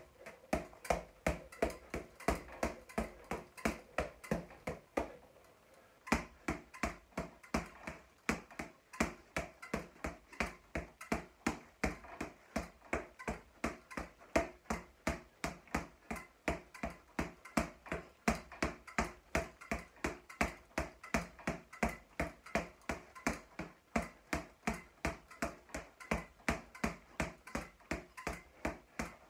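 Boxing gloves striking a floor-to-ceiling ball, its bands tightened for a faster rebound, in a quick, even rhythm of about three hits a second. There is a break of about a second around five seconds in, then the hitting resumes.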